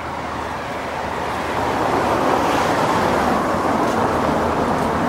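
Road traffic going by: tyre and engine noise of a passing car that swells over the first couple of seconds and then stays loud.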